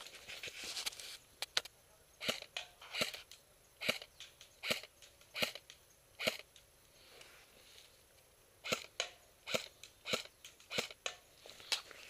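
Airsoft gun fired in single shots, sharp clicks about one a second, with fainter clicks in between from BBs hitting the targets. The shots come in two runs with a pause of about two seconds between them.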